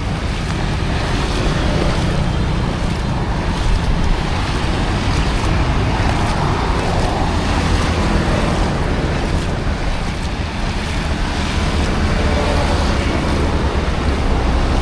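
Steady rushing of flowing water, with wind buffeting the microphone as a fluctuating low rumble.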